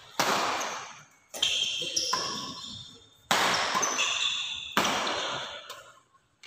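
Badminton rally: rackets strike the shuttlecock four times, each hit a sharp crack that rings on in the hall for about a second. Between shots, sneakers squeak briefly on the court floor.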